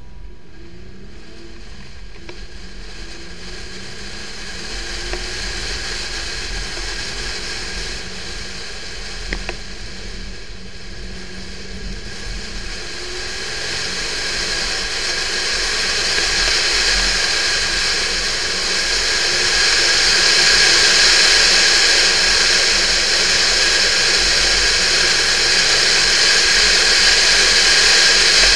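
A Porsche 911 type 996 driving at speed, its flat-six engine running beneath a rushing of wind and road noise. The rushing grows steadily louder through the second half as the car gathers speed.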